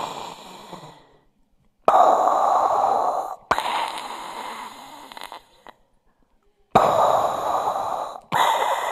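A man breathing loudly through cupped hands into a microphone, imitating an astronaut's breathing on an oxygen supply (a Darth Vader–like sound): slow, hissing breaths in pairs, with short pauses between the pairs.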